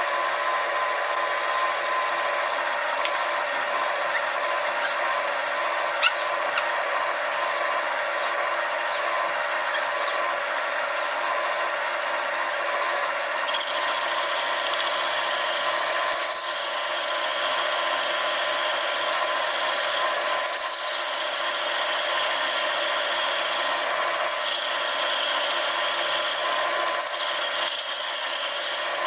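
Sieg SX2P mini mill spindle running steadily at about 870 rpm with a boring tool on fine feed opening the large hole of a steam-engine eccentric strap. Partway through, the cut adds a higher hissing scrape with four short squeaks a few seconds apart.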